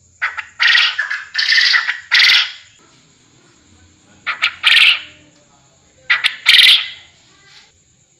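Quail calling: phrases of a few quick, short clicks followed by a longer harsh note, given three times about two seconds apart, the first phrase with several harsh notes in a row.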